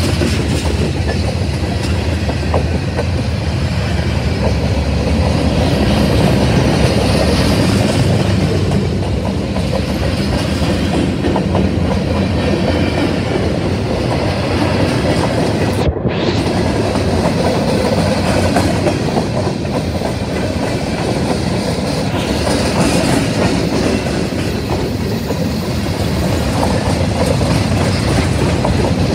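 Freight cars of a CSX manifest train, tank cars and covered coil cars, rolling past at close range: a loud, steady rolling noise with wheels clicking over the rail joints.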